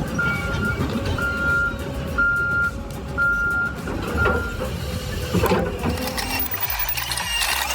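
A heavy machine's reversing alarm beeping about once a second over the low noise of its running engine. The beeping stops about four and a half seconds in.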